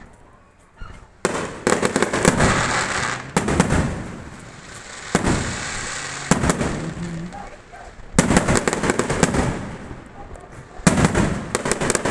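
Fireworks going off in a string of loud bangs, about eight in all, each followed by a dense crackling that dies away over a second or two.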